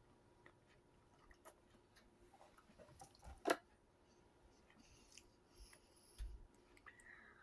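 Faint chewing of butter crisp crackers, cheese and pepperoni, with scattered small clicks and one sharper click about three and a half seconds in.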